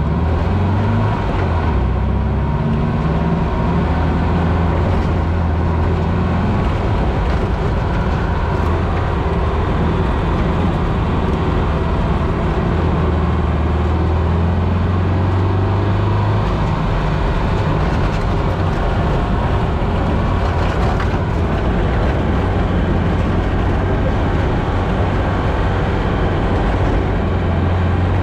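1969 Volkswagen Baja Bug's engine heard from inside the cabin while driving off-road. It runs loud and steady, its pitch rising and falling as the revs change, over a continuous haze of road noise.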